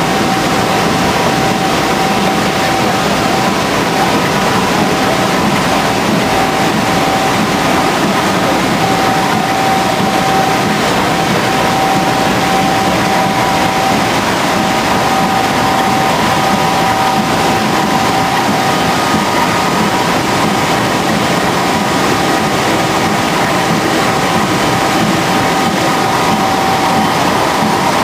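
Tymi Ustar-102 UV spot coater running at speed: a loud, steady mechanical noise with a high steady whine over it.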